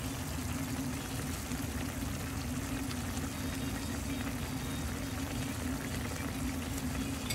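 Chicken gizzards, hearts and tails simmering in vinegary adobo sauce, bubbling steadily as the liquid reduces, over a steady low hum.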